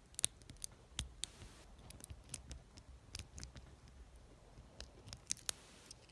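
Faint, irregular small metallic clicks and ticks of a rocker pick being rocked back and forth against the pins of a cheap gun lock, with a torsion bar holding turning pressure.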